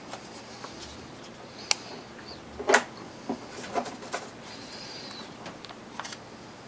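Small wooden workpieces handled at a workbench: a handful of sharp clicks and knocks, the loudest about two and a half seconds in, with light rubbing between them.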